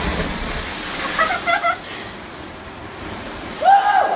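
Sea water rushing and churning in a rock cave just after a jumper plunges in, loudest at the start and settling within about a second. Short voice-like calls come about a second in, and a louder call near the end.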